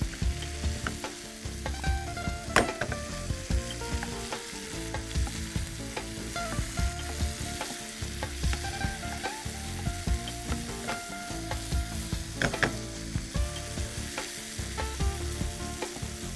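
A spatula stirs and scrapes boiled potatoes through masala paste frying in oil in a pan, with a steady sizzle. The spatula knocks sharply against the pan twice, a few seconds in and again about three-quarters of the way through.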